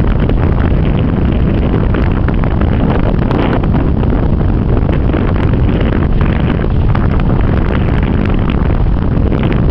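Wind buffeting the camera's microphone: a loud, steady rumble with brief gusty crackles.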